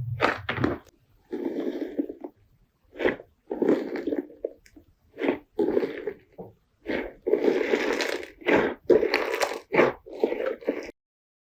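Slime being squeezed and pressed by hand: a run of short, irregular squelching and crackling bursts that cuts off suddenly near the end.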